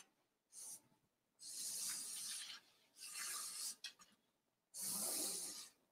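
Black marker drawn across a canvas: a short stroke, then three longer scratchy strokes of about a second each, faint.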